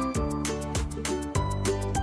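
Background music with a steady beat, about four drum hits a second, over a held bass line and plucked melody notes.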